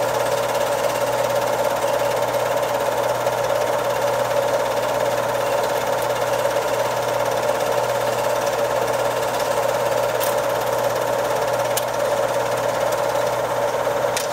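Home-movie film projector running: a steady mechanical whir over an even hum, with a couple of faint ticks near the end.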